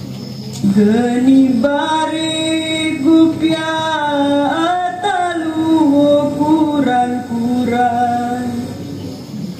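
Slow singing, led by female voices, in long held notes that bend and slide between pitches.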